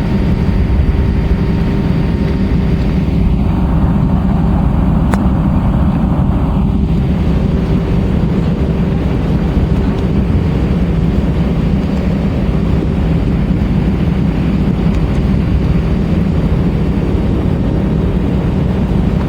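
Airbus A320-232 cabin noise: its IAE V2500 turbofans and the airflow make a loud, steady roar with a low hum. A brief extra rush of mid-pitched hiss swells about four seconds in and fades a few seconds later.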